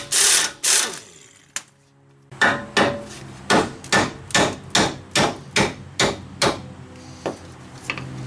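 An air impact wrench rattles in three short bursts on a front strut-to-knuckle bolt. After a pause, a hammer strikes the steel steering knuckle and strut bracket about ten times, roughly two blows a second, each ringing briefly. Two lighter knocks come near the end.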